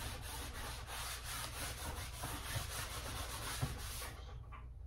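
A rag rubbing back and forth across a stretched painting canvas in quick, even strokes, smearing wet oil paint down the surface; the scrubbing stops about four seconds in.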